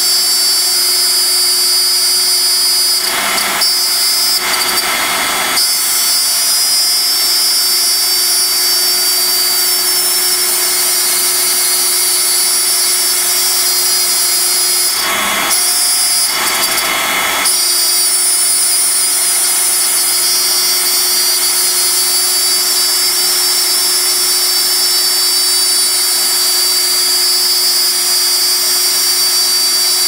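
CNC router cutting 1/4-inch MDF with a 1/8-inch single-flute upcut bit, with a steady high motor whine and a dust-collection vacuum running. Twice, about 3 and 15 seconds in, the cutting grows louder and rougher for two or three seconds as the bit takes a heavier cut.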